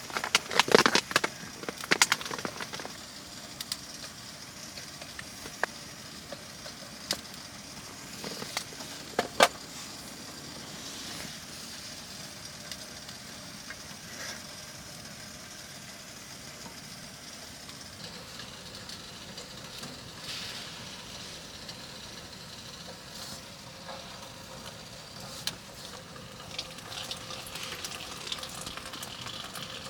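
Steady sizzling hiss with scattered sharp crackles and clicks, from cooking on a wood-burning stove. The crackles are thickest in the first few seconds, again about nine seconds in, and near the end.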